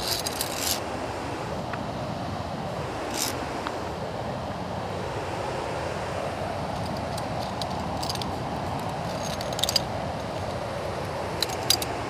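Steady rushing of a waterfall heavy with snowmelt, with metal clinks of via ferrata carabiners on the steel cable and iron rungs coming in short clusters near the start, about three seconds in, from about seven to ten seconds, and near the end.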